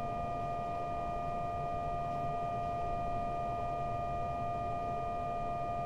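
Steady two-tone DTMF touch-tone for digit 1 (about 700 and 1200 Hz together) from a keyed amateur radio transmitter, held unbroken as a test tone while the repeater link's transmit level is set.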